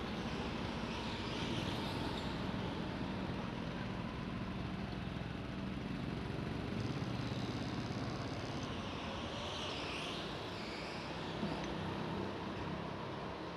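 Go-kart engines idling steadily, a low, even engine hum in a large hall.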